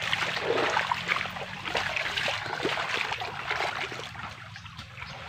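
Shallow creek water sloshing and trickling, with irregular small splashes as hands grope in the water and legs wade through it. The splashing thins out in the last second or so.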